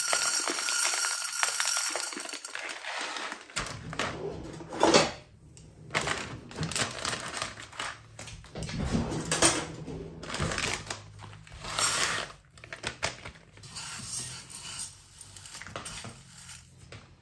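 Rice and water going into a cooking pot: a hissing pour for the first few seconds, then scattered knocks, clinks and scrapes of the pot and utensils over a steady low hum.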